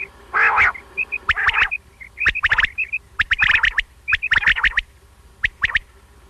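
Common quail calling: several phrases of two or three sharp, quick notes, with soft short paired notes between them. About half a second in there is one rougher, noisier note.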